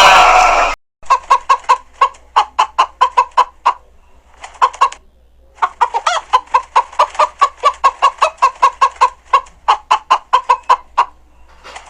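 Chickens clucking: runs of short, sharp clucks, several a second, with a brief pause midway. A sheep's bleat cuts off in the first second.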